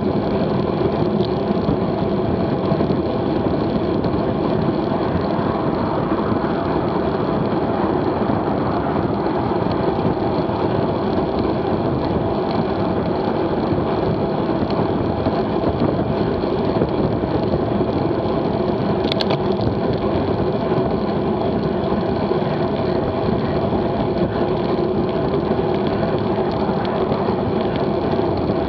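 Wind rushing over a bicycle-mounted action camera at about 26 mph, with tyre noise on the asphalt: a steady, loud rush with a low hum. A single short sharp click about two-thirds of the way through.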